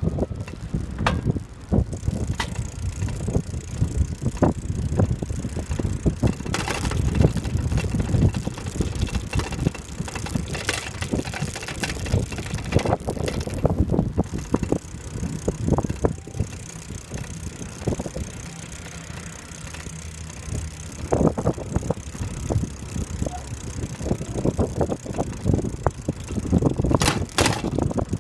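A bicycle ridden along an asphalt path: a steady rumble of tyres on the road surface, with constant small rattles and knocks from the bike's fittings.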